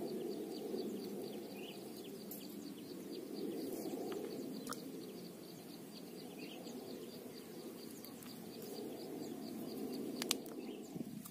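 Open-air ambience: a steady low rushing noise, with a bird chirping in a fast, even series of high ticks, about four a second.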